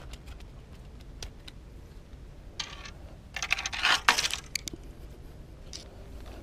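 A small corvina just landed and flapping on concrete: a quick run of light taps and scrapes, loudest about three to four seconds in, with scattered small clicks around it.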